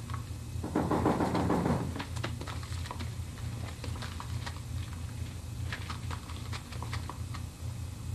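A short burst of rustling, satin bedding and paper, about a second in, then scattered light clicks over a low steady hum.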